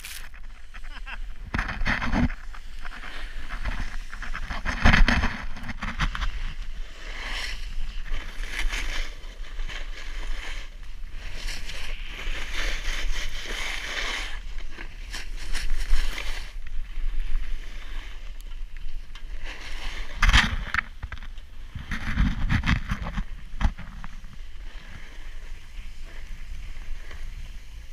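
A snowboard scraping and hissing over snow during a downhill run, with a steady rumble of wind on the microphone. A few louder scrapes and bumps stand out, the strongest about 20 seconds in.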